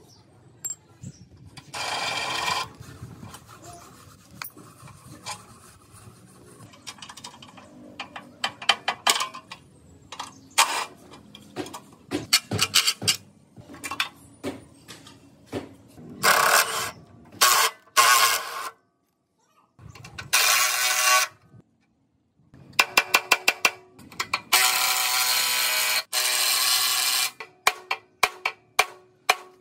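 Clanks and clicks of steel parts being worked loose from a rusty motorcycle frame, broken by several bursts of a cordless impact wrench of a second or two each. Near the end comes a quick run of hammer blows on steel.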